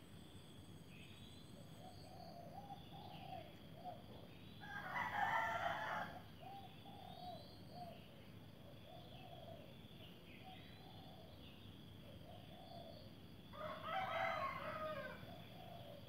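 A rooster crowing twice, about nine seconds apart, each crow lasting about a second and a half, over a steady high insect drone and faint bird chirps.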